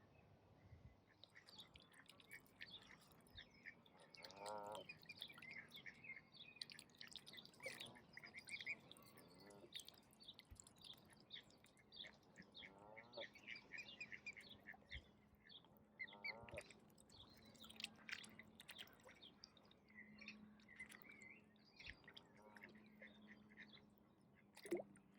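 Faint chirping of small birds throughout, with a few short duck calls about 4, 13 and 16 seconds in.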